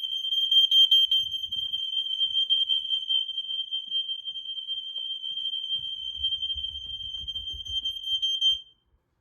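Interconnected household smoke alarms all sounding together, set off by canned test smoke sprayed into one detector: one steady high-pitched shriek that wavers in loudness. The alarms cut off suddenly near the end.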